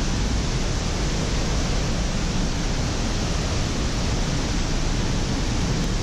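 Pailón del Diablo waterfall rushing: a loud, steady, unbroken wash of falling water.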